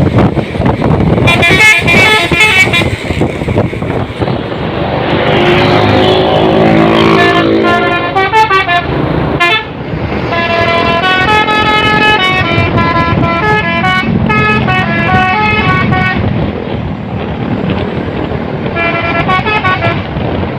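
Fuso truck's telolet horn, a multi-tone musical horn, playing quick stepping melodies in several runs, the longest lasting about eight seconds, over the low rumble of the vehicle.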